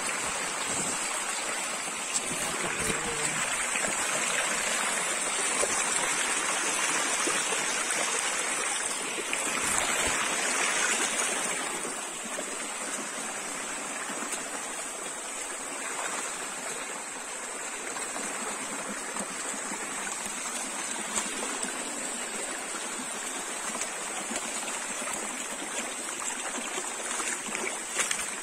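Small hill stream running over rocks, a steady rush of water that swells louder for several seconds in the first half. A steady high-pitched whine sits above it.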